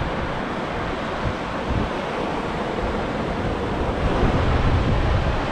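Ocean surf washing onto a beach as a steady rush, with wind rumbling on the microphone, a little louder about four seconds in.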